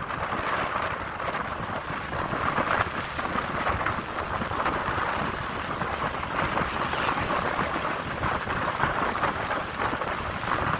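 Wind buffeting the microphone of a phone on a moving vehicle, over a steady rush of road and engine noise.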